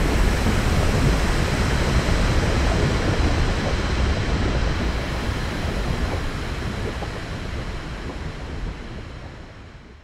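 Volcano eruption sound effect: a dense, rumbling wash of noise, heaviest in the low end, that fades out steadily through the second half.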